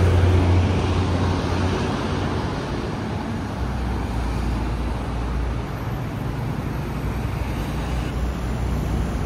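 Street traffic: a car engine's low note fading over the first second or so, then steady road noise of passing cars.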